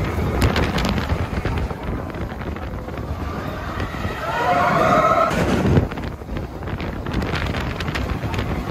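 Expedition Everest roller coaster train running on its track: a heavy rumble and clatter with wind buffeting the microphone. Riders scream for about a second midway through.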